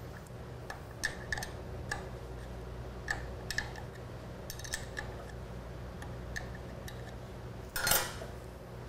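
Light, irregular metallic clicks and clinks of hand tools working the starter bolt as it is loosened to release the positive battery cable, with a louder brief clatter about eight seconds in.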